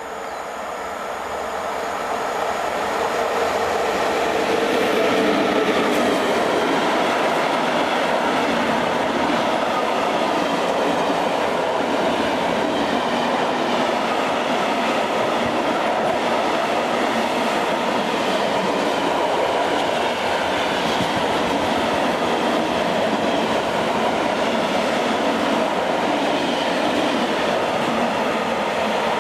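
Freight train of tank wagons led by a Škoda 59E (class 182) electric locomotive passing close by. The noise of the wheels on the rails grows louder over the first few seconds as the train arrives, then holds steady as the long string of tank wagons rolls past.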